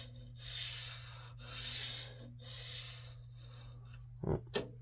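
Oiled sharpening stone rubbed in slow strokes along the steel edge of a Gränsfors Bruks axe, about one stroke a second, honing out a chip; two short knocks near the end.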